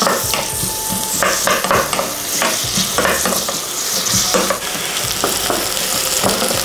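Chopped onion and garlic sizzling in hot oil in a pot, stirred with a utensil that scrapes and knocks against the pan again and again.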